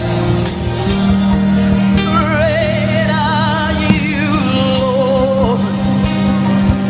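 Gospel music playing, with a steady held bass note under it and a singer holding long notes with a wide vibrato through the middle.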